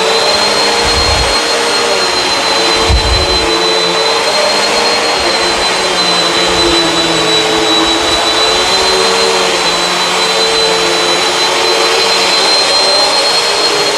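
Bissell CleanView Swivel upright vacuum running steadily over carpet, a steady high whine over the motor's rush, with a couple of brief low thumps about one and three seconds in.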